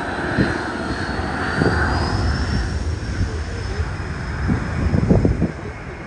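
Jet airliner departing: engines running over a low rumble, with a high fan whine that rises in pitch over the first couple of seconds and then holds steady.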